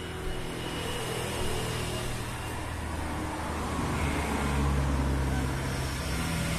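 Corded electric hair clipper buzzing as it cuts hair on top of the head, a steady low hum that gets louder about four seconds in.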